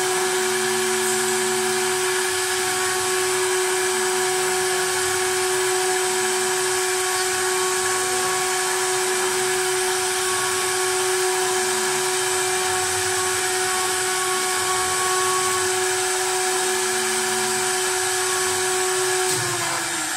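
CNC wood lathe's high-speed carving spindle running with a steady whine as it cuts spiral grooves into a wooden baluster, with a rough cutting noise under it. Near the end the whine drops in pitch and fades as the spindle winds down.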